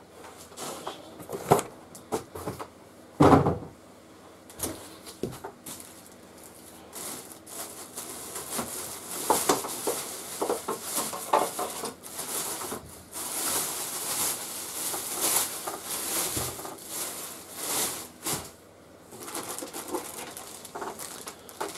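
Clear plastic wrapping rustling and crinkling as it is pulled back off a table saw inside its cardboard box, mostly in the second half. A few knocks and a single louder thump come a few seconds in as things are moved against the box.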